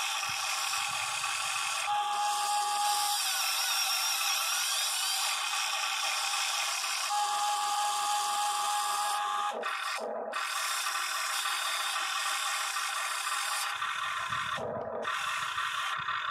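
Huina 580 remote-control excavator's electric motors and gear drives whining as the arm and ripper work, the pitch shifting abruptly several times as different motors start and stop, with a few low scraping sounds from the ripper in the dirt.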